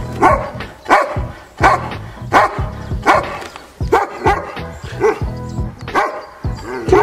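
Border collie barking repeatedly, a sharp bark roughly every 0.7 s, over background music.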